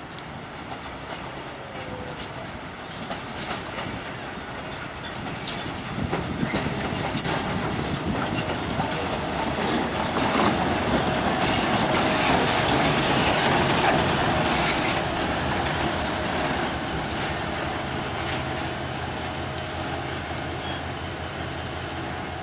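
FS D.245 diesel shunting locomotive running slowly past, its engine running and its wheels clicking on the track. It grows louder as it comes close, peaks about twelve seconds in, then fades as it moves away.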